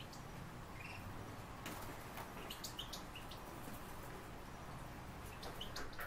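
Faint, short, high bird chirps: a few scattered notes, clustered about two to three seconds in and again near the end, over a low steady hum.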